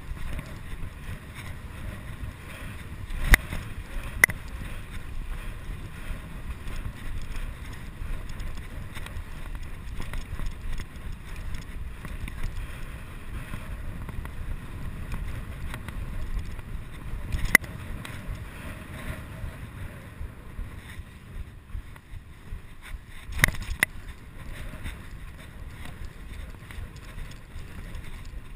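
Wind noise on a chest-mounted GoPro HD2's microphone and the rumble of bicycle tyres on brick paving during a fast ride, with a few sharp knocks scattered through.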